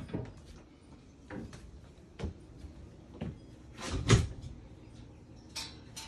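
Irregular knocks and thumps from an RV's entry door and someone stepping inside, about one a second, with the loudest thump about four seconds in.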